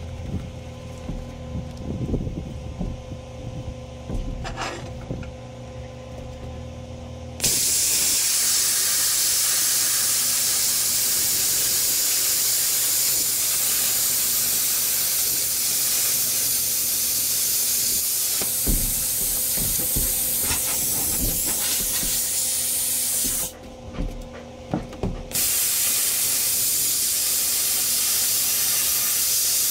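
Plasma cutter cutting a circle out of steel plate with a circle-cutting guide. A loud steady hiss of the plasma arc starts suddenly about seven seconds in, breaks off for about two seconds with a few knocks, then starts again. Before the arc, a low steady hum and a few knocks.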